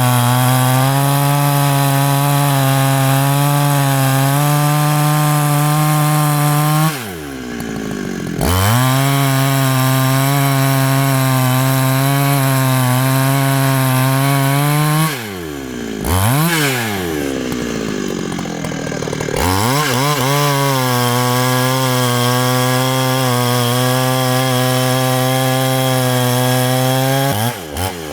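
Large professional Husqvarna two-stroke chainsaw held at full throttle, cutting into a big tree trunk. The engine pitch stays steady under load, drops back toward idle twice along the way and rises again to full revs, then drops once more near the end.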